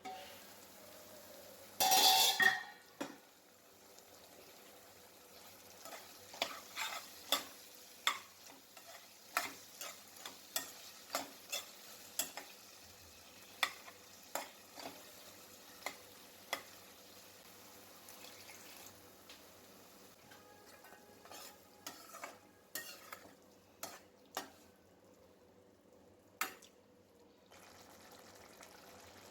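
Spatula stirring and scraping food in a frying pan over low sizzling, in irregular strokes, with one louder burst about two seconds in.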